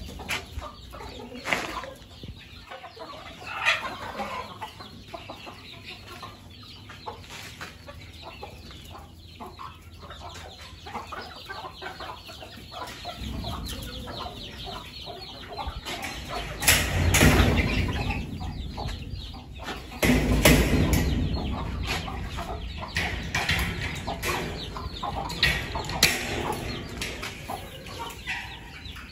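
Country chickens clucking on and off in their pens. Two stretches of low rumbling noise rise over them midway through, the loudest parts.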